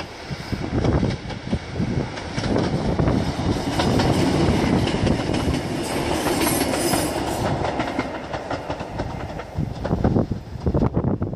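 Short diesel passenger train passing close by, its engine and wheels on the track rising to a peak about halfway through and then fading as it moves off.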